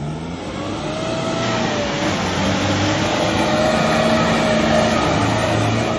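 Mahindra Bolero's engine revving under load as the SUV drives through deep mud, its tyres churning and flinging mud. The noise builds steadily to its loudest about five seconds in, then eases off near the end.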